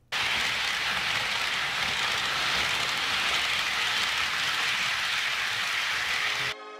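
HO scale model freight train rolling past on Kato Unitrack: a steady rushing rattle of wheels on the rails. It cuts off about six and a half seconds in, when music begins.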